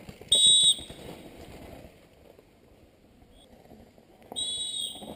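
Two short, shrill whistle blasts, one about half a second in and one a little past four seconds in, over the rustle of a downhill mountain bike on the dirt trail.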